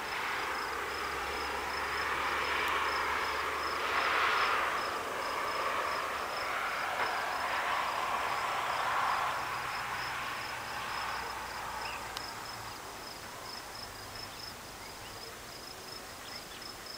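An insect chirping in a steady high-pitched pulse, about four chirps a second, over a rushing noise that swells and fades, loudest in the first ten seconds.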